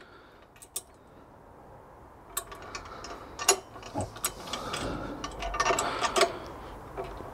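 A bolt and washer being fitted through a pressure-washer trolley chassis and screwed up: irregular clicks and knocks of metal parts and a hand tool, sparse at first and busier from about two seconds in.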